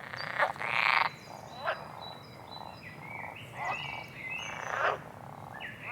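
Frogs croaking in a rainforest chorus: a loud rasping call in the first second, then shorter repeated croaks, with thin high whistled notes over them.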